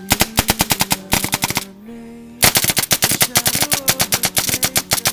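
Diablo Wrath electronic paintball marker firing in fast semi-automatic strings, about a dozen shots a second, with a brief pause just under two seconds in before the next string.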